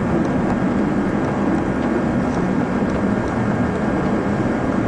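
A steady low rumble with hiss, unchanging throughout, with a few faint ticks.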